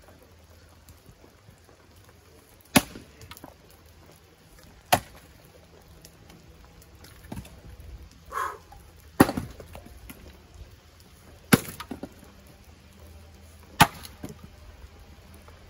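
Axe splitting firewood rounds: five sharp chops two to three seconds apart, each a crack of the blade driving through the wood.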